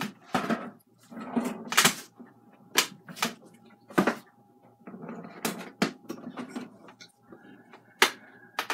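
Brush and tool handling while painting: short scratchy scrubbing strokes mixed with irregular sharp clicks and knocks.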